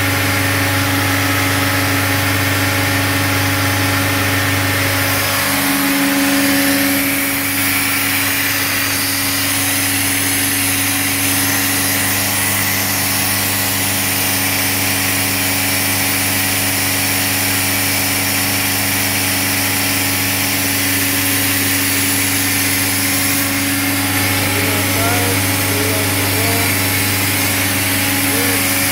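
Nitrogen servicing cart's engine and compressor running steadily, set at about 2,000 RPM. The pitch of the hum shifts about five seconds in, as a low part of it drops away, and shifts back near the end.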